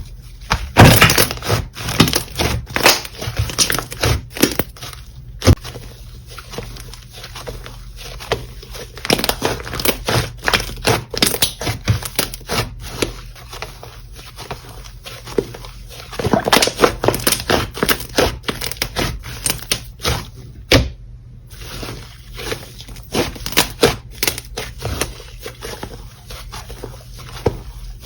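Slime being squished and kneaded by hand, giving dense runs of sticky crackling and popping clicks in irregular bursts, broken by a brief silent gap about two-thirds of the way through.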